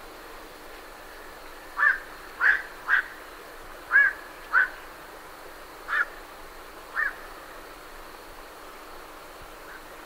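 Black-crowned night herons calling as they leave their roost: seven short, loud calls spread over about five seconds, over a steady hiss of lake swell.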